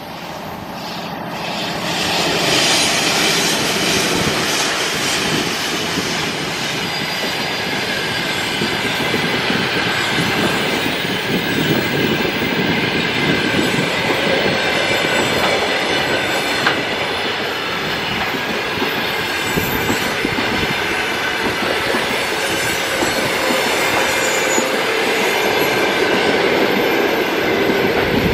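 A train passes close by: the rush of its wheels on the rails builds over the first couple of seconds and then holds loud and steady, with faint high tones over the noise.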